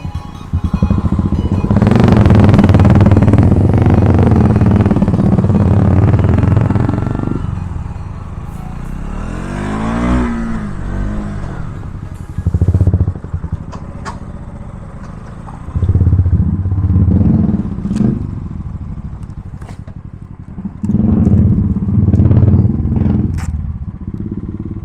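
Motorcycle engines revving in repeated loud bursts, with a vehicle passing close about ten seconds in.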